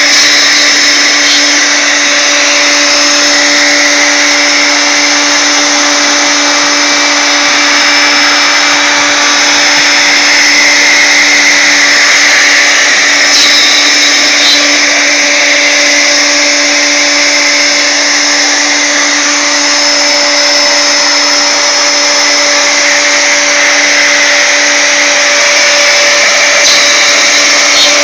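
Router motor serving as the spindle of a CNC router, running at a steady high speed while a small ball-nose bit carves a finishing pass in a wooden blank: a constant motor whine with the hiss of the cut.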